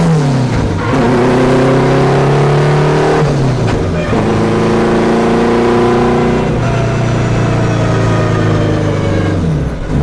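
Four-cylinder Honda K20 engine of an all-wheel-drive car running under load at high, fairly steady revs. Its pitch dips and picks up again a few times.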